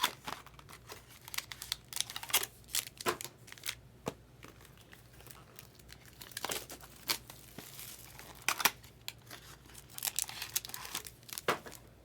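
Plastic shrink-wrap on trading card boxes crinkling and tearing in irregular sharp crackles and short rips as the boxes are unwrapped.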